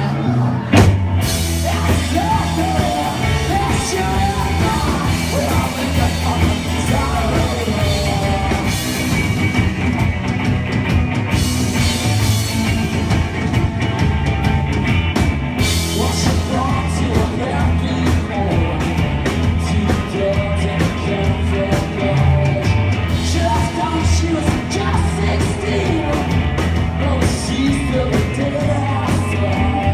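Live rock band playing at full volume: electric guitars and a drum kit, with the male lead singer singing over them.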